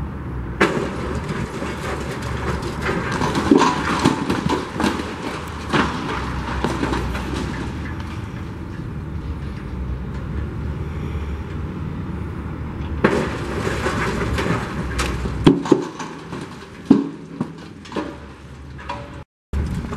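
Building demolition: debris crashing and breaking away in repeated loud crashes over a steady low rumble. The rumble drops away about three-quarters of the way through, leaving scattered crashes.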